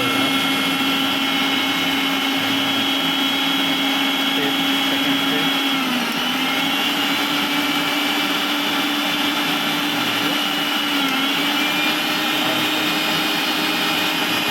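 Electric mixer grinder motor running steadily at full speed with a high whine, its pitch dipping briefly and recovering twice. The motor keeps running rather than cutting out, now fitted with a new overload protector (OLP).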